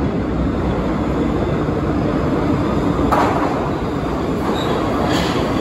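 R62 subway train of the 3 line rumbling into an underground station, with brief sharper clatters from the wheels about three seconds in and near the end.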